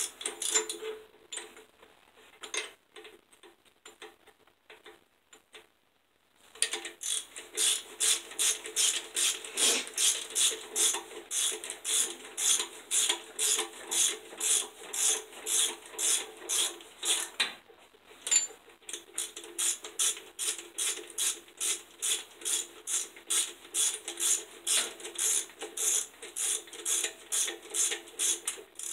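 Hand socket ratchet clicking as it tightens intake manifold bolts on a Dodge 318/360 V8. A few scattered clicks come first. Then, from about six seconds in, there is a steady run of quick ratcheting strokes, two or three clicks a second, with a short pause partway through.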